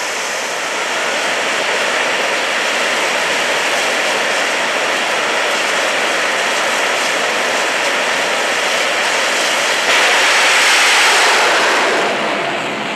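Twin Rolls-Royce Bristol Viper jet engines of a 1940 Ford jet fire truck running at high power, a loud steady rush. About ten seconds in it jumps louder, then falls away near the end as the truck runs off down the drag strip.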